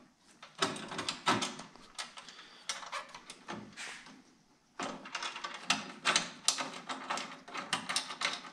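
Small metal clicks and rattles of bolts, nuts and washers being handled and started by hand on a steel bracket, left loose rather than tightened. There is a short pause a little past the middle, then the clicking picks up again.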